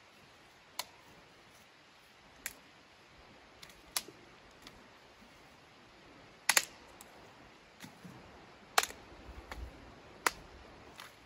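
Dry sticks snapping by hand: a series of sharp cracks a second or two apart, the loudest ones in the second half.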